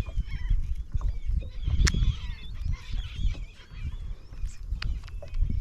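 A flock of seabirds feeding over fish, many overlapping short, squealing calls over a steady low rumble, with a few sharp clicks.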